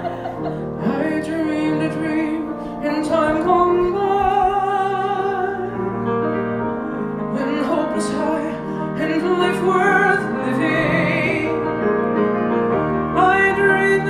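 A man singing live into a microphone with piano accompaniment, holding long notes with vibrato.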